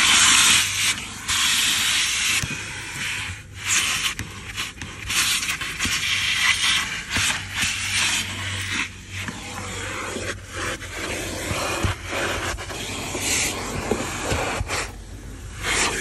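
Vacuum cleaner hose nozzle sucking dirt from car floor carpet: a loud suction hiss that swells and fades as the nozzle presses down and lifts, over a steady motor hum, with scraping against the carpet and scattered clicks of grit going up the hose.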